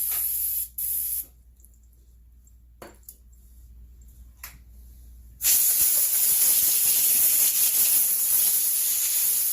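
Aerosol brake cleaner sprayed onto sticky bolts: a short hiss that cuts off about a second in, then a couple of faint clicks, then a long steady spray hiss from just past halfway on.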